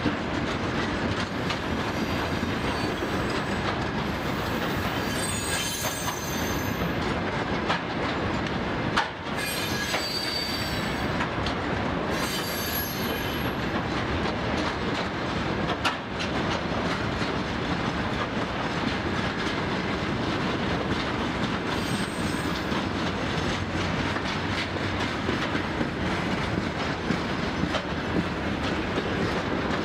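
Freight train of covered hopper wagons rolling past: a steady rumble and clatter of wheels over the rails. Brief high-pitched wheel squeals come several times, and two sharp knocks sound about 9 and 16 seconds in.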